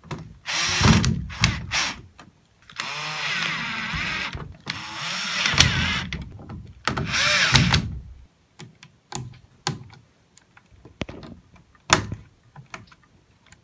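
Cordless drill-driver driving screws to fasten an LED light board into a ceiling light fixture. It makes a few short runs, then three longer runs of a second or two each, its pitch bending as the speed changes. Scattered clicks and taps follow in the second half.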